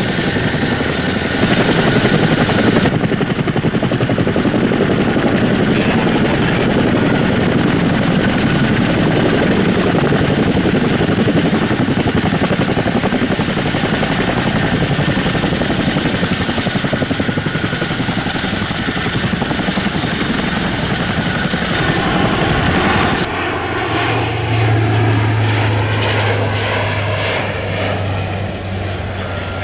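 RCAF CH-147F Chinook tandem-rotor helicopter running on the ground with both rotors turning, its turboshaft engines and rotor blades making a loud, dense noise. About 23 seconds in, the sound changes abruptly to a CC-130J Hercules four-engine turboprop flying on approach, with a steady low drone.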